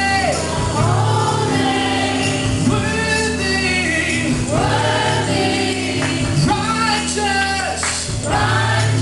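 A live worship band playing and singing a slow gospel song: a man's lead voice, with other singers, over electric bass, acoustic guitar and keyboard, in sustained sung phrases over held chords.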